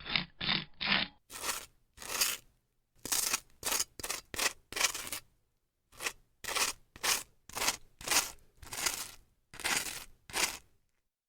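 Butter knife spreading butter on grilled French toast, scraping across the crust: a quick run of short strokes at first, then slower, longer strokes about one or two a second with brief pauses between runs.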